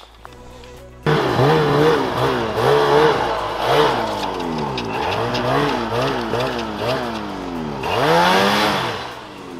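Snowmobile engine revved in quick blips, its pitch climbing and dropping again and again, with one longer rev near the end. The sled is stuck in deep snow.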